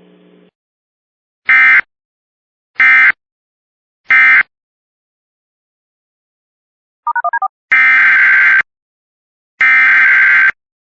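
Emergency Alert System SAME data bursts, harsh digital warbles. First come three short end-of-message bursts about a second and a half apart, closing the marine warning. After a pause of a few seconds there is a brief pulsing beep, then the first two of the longer header bursts that begin the next alert.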